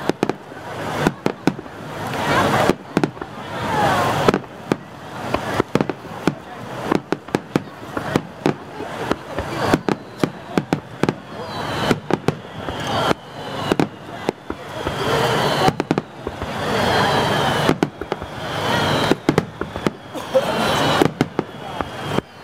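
Aerial firework shells bursting in quick succession, many sharp bangs close together with crackling between them. From about halfway on, high falling whistles sound over the bangs.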